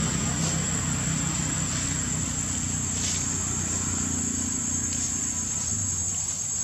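Steady low hum of an engine running, its pitch shifting slightly about four seconds in, with a steady high-pitched whine above it.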